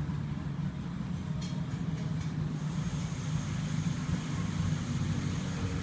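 A steady low hum, with a few faint clicks about one and a half to two seconds in and a faint high whine from about two and a half seconds on.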